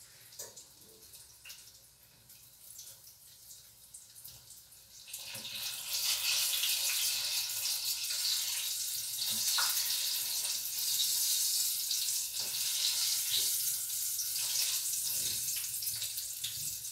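Zucchini fritters frying in hot oil. A few faint clicks at first, then about five seconds in a loud, steady crackling sizzle starts suddenly and keeps going.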